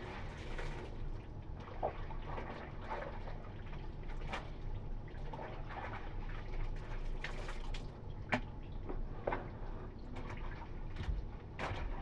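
Clothes being hand-washed in a plastic basin of soapy water: soaked garments are lifted, squeezed and dropped back, with irregular splashes and water pouring back into the tub.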